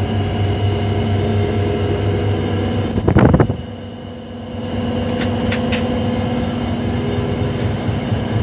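EMD two-stroke diesel engine of an HGMU30 locomotive idling, a steady hum heard inside the cab. About three seconds in, a brief loud sound rises over it, and the hum dips for about a second before returning.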